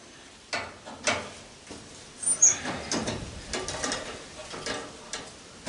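Irregular metallic clicks and scrapes of a wrench being fitted to and worked on a brass fitting of a gas cook stove.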